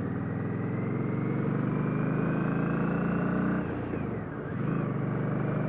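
Indian Scout Sixty's V-twin engine running under way, its pitch slowly climbing as the bike accelerates. About three and a half seconds in it drops briefly, then pulls again.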